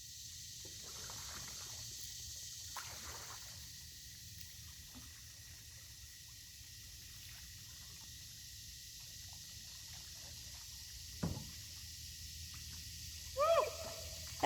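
Faint water sounds of a kayak paddling: light splashing and trickling as the paddle dips and drips. There is a single sharp knock about eleven seconds in, and a brief voice-like sound near the end.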